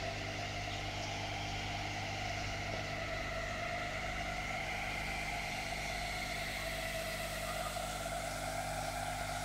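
Steady electrical hum with a wavering whir, typical of a reef tank's circulation pumps running.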